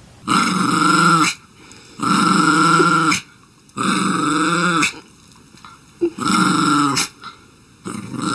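Small shaggy dog growling in five drawn-out bursts of about a second each, with short pauses between them.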